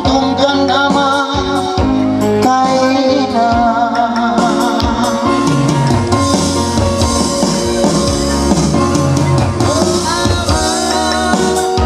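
Electronic keyboard playing a song with a drum beat, while a man sings into a microphone over it for part of the time.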